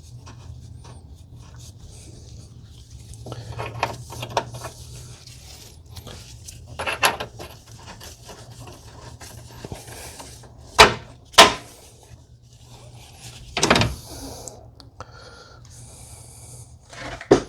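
Hand work on a car's lower control arm: scraping and rubbing, then two sharp knocks about half a second apart a little past halfway, and a third, longer knock a couple of seconds later, over a steady low hum.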